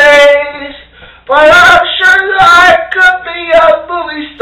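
A man singing loudly without accompaniment, in long held, sliding notes, with a short break about a second in.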